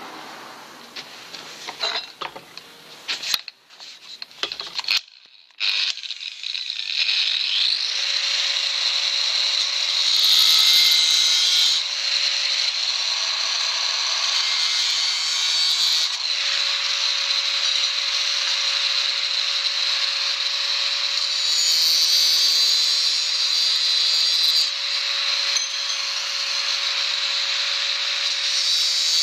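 A few metal clinks and knocks as steel rod is handled, then about six seconds in an angle grinder with a cut-off disc starts and runs steadily, cutting through steel rod with a high grinding hiss.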